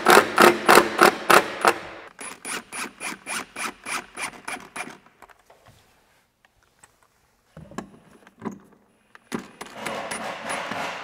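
Cordless driver sinking screws into a wooden window frame in several bursts, each a rapid rattle of about five clicks a second. There is a pause in the middle.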